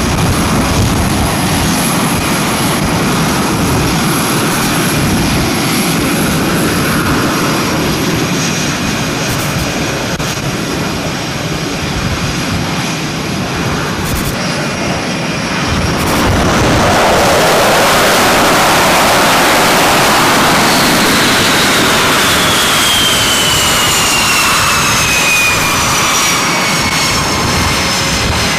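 F/A-18 jet engines running: a steady loud roar with a high whine, growing louder about halfway through. Over the last several seconds a high-pitched whine falls steadily in pitch.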